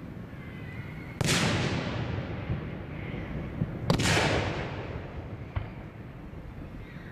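Aerial firework shells bursting: two loud booms about two and a half seconds apart, each trailing off in a long echo. A faint crack follows a couple of seconds after the second boom.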